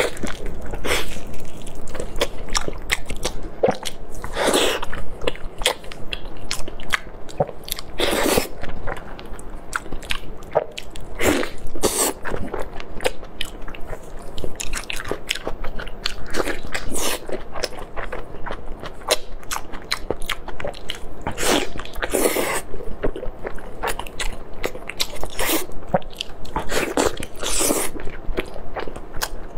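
Close-miked eating: a person biting and chewing sauce-covered braised meat, with irregular wet mouth smacks and sharp clicks. Several louder bites are scattered through.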